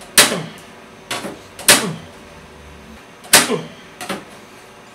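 Olidata desktop PC tower case being knocked and jolted while its stuck side panel is forced: about five sharp bangs with a short ring after each. The three loudest come a quarter second, about a second and a half, and about three and a third seconds in.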